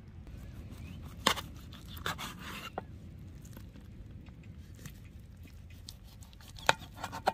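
Scattered handling noises: sharp clicks and knocks about a second in, a cluster of crackly scrapes two to three seconds in, and two more clicks near the end, over a low steady hum.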